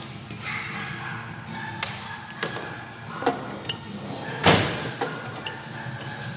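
Workshop knocks and clinks from tools and parts being handled during engine dismantling. The knocks come singly and irregularly, with the loudest thump about four and a half seconds in.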